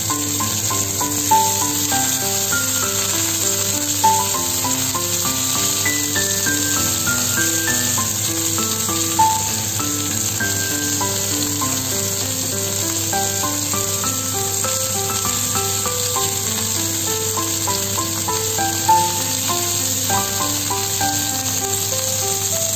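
Minced-pork-stuffed long bean nests sizzling steadily as they fry in oil in a pan. Background music plays over it, a melody of short notes.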